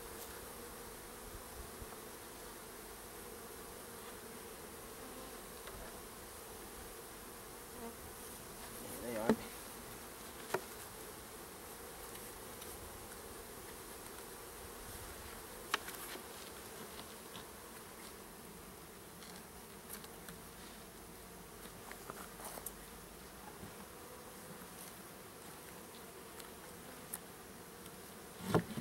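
Honey bees buzzing steadily around an open hive as a package is installed, with a few short knocks and brief louder swells now and then.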